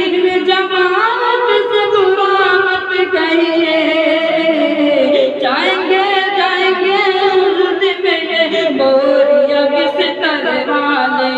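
Solo voice singing a naat: long, ornamented sung lines that glide up and down in pitch, with no beat.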